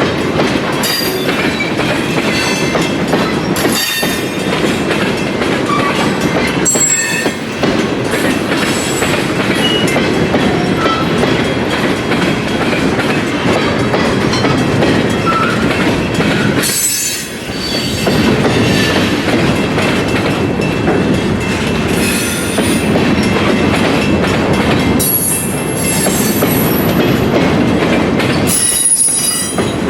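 A train rolling past at close range: a steady loud clatter of wheels on rail, with brief high-pitched wheel squeals coming and going, most noticeable in the last few seconds.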